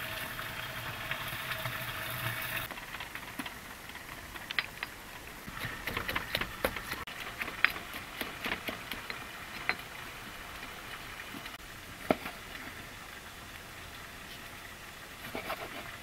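For the first couple of seconds there is a steady hiss from a clay pot boiling over a wood fire. Then a wooden pestle pounds chilies and salt in a stone mortar, giving irregular sharp knocks.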